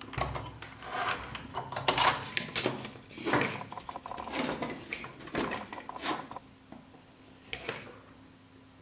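Hand tools clicking, scraping and clattering against the metal and plastic parts of an old brick-type mobile phone as it is forced apart, in irregular bursts that die down to a few faint clicks near the end.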